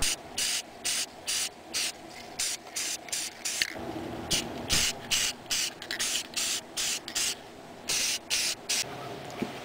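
Aerosol spray paint can hissing in many short spurts, about two a second, as primer goes onto a welded steel steering shaft.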